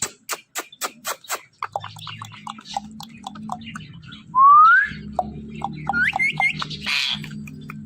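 Parrot making a quick run of clicks, then a loud rising whistle about halfway through, followed by a few short rising chirps and a brief harsh squawk. A low steady hum sits underneath from about two seconds in.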